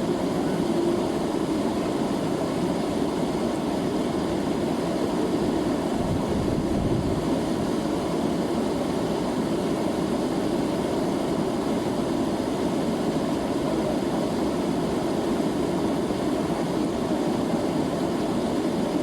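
River water rushing, a steady low rush that does not change.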